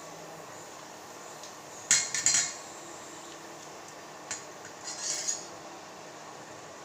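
Metal utensil clinking and scraping against cookware, in two short clusters a couple of seconds apart, over a steady hiss.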